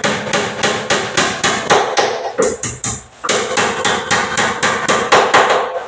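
A hammer striking rapidly and evenly, about five blows a second, with a brief pause about halfway through.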